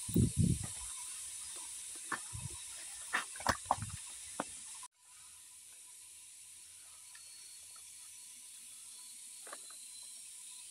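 Soil and stones scraped and knocked about while digging by hand and with a machete, a run of short knocks and scrapes in the first few seconds. The sound then cuts off abruptly, leaving a steady high hiss with a few faint scrapes.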